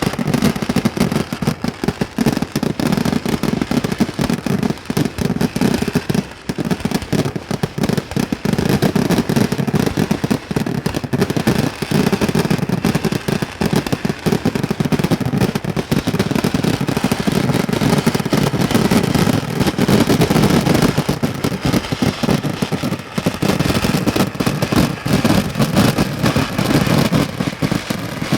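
A dense, continuous barrage of firecracker bangs from a Kerala festival fireworks display, the reports overlapping into a rapid crackling roll, with a brief lull about six seconds in.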